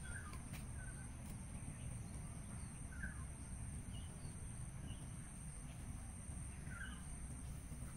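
Faint scattered bird chirps, a handful of short calls spread over several seconds, over a steady low rumble.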